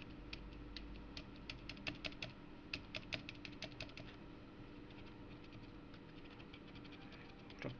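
Typing on a Xiaomi YueMi MK02S mechanical keyboard whose switches have been lubricated with silicone grease: a quick run of soft keystrokes for about four seconds, then only a few, practically silent.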